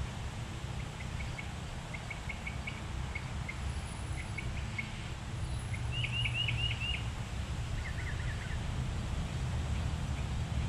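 Wind rumbling on the microphone, with small birds chirping over it in short notes and a quick run of chirps about six seconds in.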